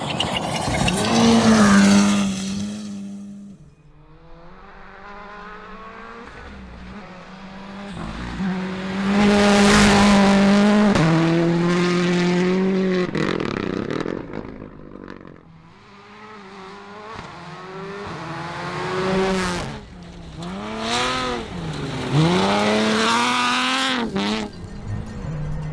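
Rally car engines at full throttle over several passes. Each rises in pitch, then drops sharply at gear changes and lifts, with quieter gaps between the runs.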